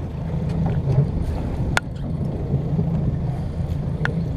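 Fishing boat's engine running with a steady low rumble, with wind and sea noise; two sharp clicks, about two seconds in and near the end.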